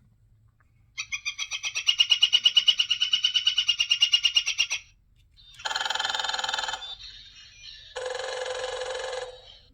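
Recorded bird calls played back by an Identiflyer birdsong wand: a rapid trill of about ten notes a second that lasts nearly four seconds, then two short, harsh calls.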